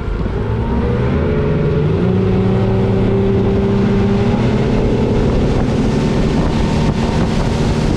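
250 hp outboard motor pushing a boat up to speed: its pitch climbs over the first couple of seconds, then it runs steady at speed over the rush of water and wind.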